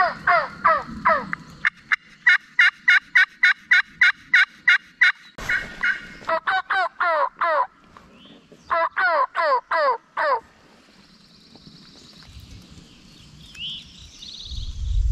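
Turkey yelping: three long runs of sharp, evenly spaced yelps, each note dropping in pitch, about three a second. Near the end there is a low rumble.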